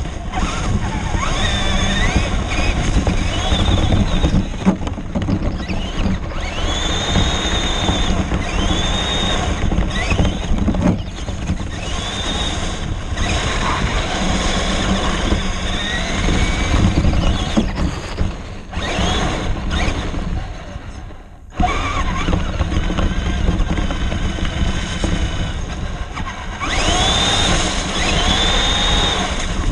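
Onboard sound of an RC car driving through slush and ice: the motor whines up and down in pitch with each burst of throttle, over a heavy, steady rumble of tyres, spray and wind on the car-mounted microphone. The noise dips briefly about two-thirds of the way through.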